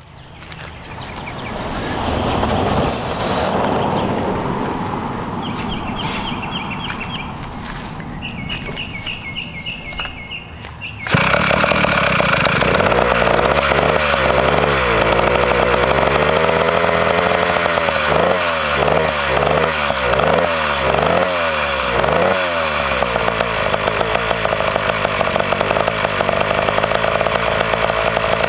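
Two-stroke motorized-bicycle engine, fitted with a pull start and started on starting fluid because it has no choke. After about eleven seconds of noise and a few short rattles, the engine is suddenly running loud; its revs rise and fall several times, then it settles into a steady run.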